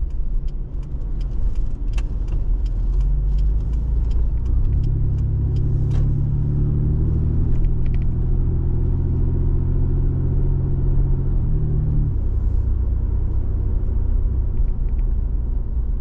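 Car engine and road noise heard from inside the cabin while driving, with light knocks and rattles in the first few seconds. The engine note swells about four seconds in, holds steady, and drops back about twelve seconds in.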